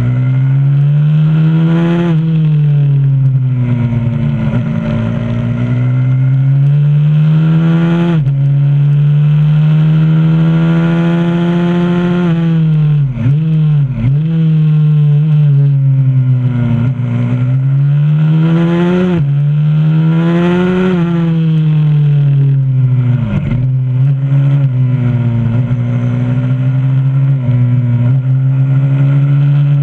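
A 125cc pit bike's single-cylinder four-stroke engine, heard from an onboard mount, revving hard on a lap. The pitch climbs under throttle and drops back at each gear change, and it plunges sharply twice, about halfway through and again later, as the throttle closes for braking into corners.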